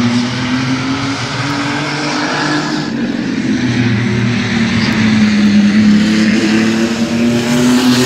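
Mini-truck race trucks' engines running at racing speed on the oval. The engine pitch dips and then climbs again as the pack comes around the turn and passes close by near the end.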